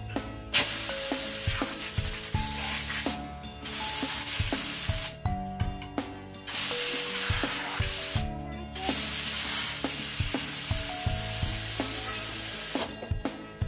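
Water gushing from a tap on a PVC pipe and splashing onto a concrete floor, in four bursts that start and stop abruptly, over background music.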